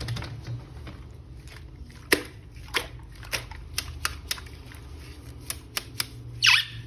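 Scattered sharp clicks and taps of plastic being handled, about a dozen irregularly spaced, with a short falling squeak near the end.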